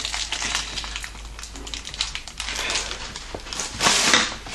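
Crinkling rustles and small clicks of fingerboard packaging being handled, with a louder rustle near the end.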